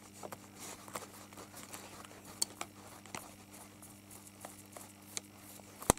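Young cat gnawing on a plastic ballpoint pen: scattered small clicks and scrapes of teeth on plastic, with a sharper click near the end.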